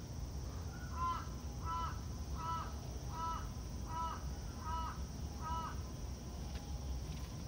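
A crow cawing seven times in an even series, about one caw every three-quarters of a second, starting about a second in.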